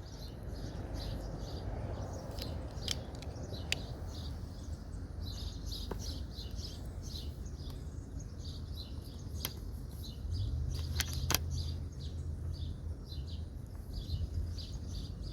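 Small birds chirping over and over, with a few sharp clicks here and there.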